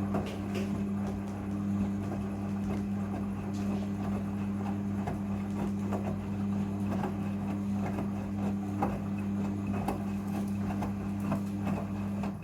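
Front-loading washing machine running a rinse with a carpet inside: a steady motor hum under irregular knocks and thuds as the drum turns the wet carpet.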